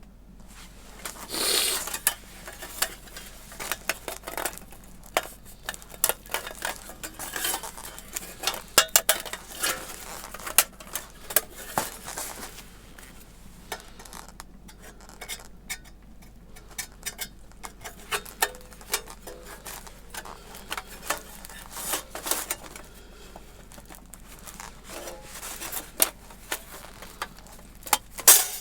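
Thin titanium plates and parts of a Sakura Kogyo Sakura-en solo fire pit clinking and rattling against each other as they are fitted together. Many light metallic taps and clicks come at irregular intervals, with a longer scraping rustle about a second in.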